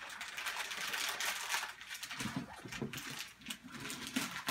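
Rustling and crinkling of gift wrap and packaging being handled, with many small crackles and clicks.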